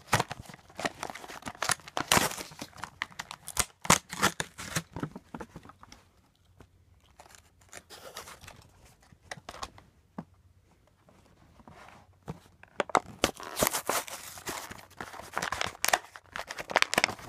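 Clear plastic blister pack of a diecast toy car being handled and pried open: irregular crinkling, crackling and tearing of plastic and card, sparser in the middle and busiest near the end.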